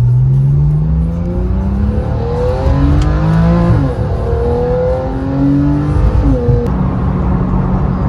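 2015 Porsche 911 Carrera GTS's 3.8-litre flat-six pulling away under acceleration, its pitch climbing steadily and dropping back at upshifts a few times, about four and six and a half seconds in.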